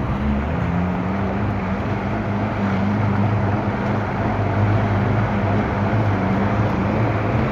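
River boat's motor running steadily under a constant rushing noise of water and wind.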